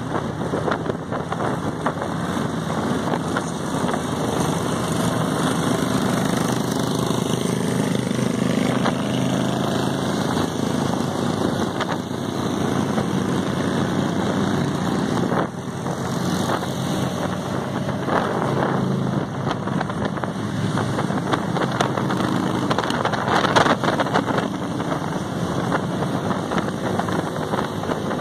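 A convoy of motorcycles and a trike riding at road speed, their engines running steadily with slow rises and falls in pitch, mixed with road and wind noise on the microphone.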